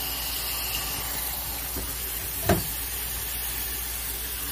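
Tap water running steadily onto lettuce, red onion and tomatoes in a colander, with a single knock about halfway through.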